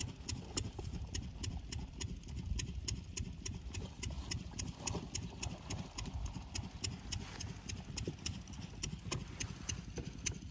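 8 hp single-cylinder diesel water-pump engine running slowly and steadily: a low thudding with a sharp tick about four times a second.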